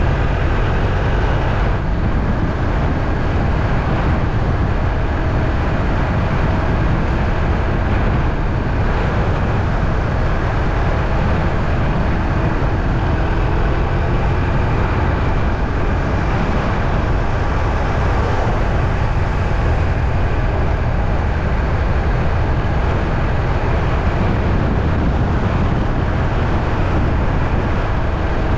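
Steady low rumble and noise of a moving vehicle, running evenly without a break.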